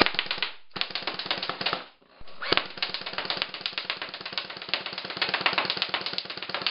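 Airsoft Tommy gun firing in rapid automatic bursts, with BBs clattering on the targets: a short burst, a second about a second long, then a long continuous burst from about two and a half seconds in.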